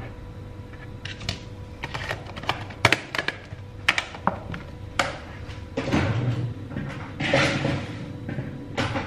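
Stainless steel kitchen tongs clicking and knocking against a plastic bowl as raw chicken pieces are dropped in, then a longer stretch of plastic rustling and clicks from a clear plastic food container and its lid being handled.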